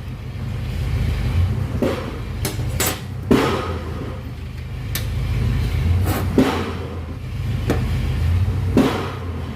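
A series of sharp knocks, about six spaced irregularly a second or so apart, over a low steady rumble.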